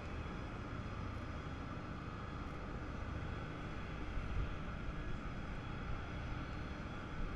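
Self-propelled modular transporter running steadily as it moves slowly under a heavy load, a low rumble with an even hiss over it.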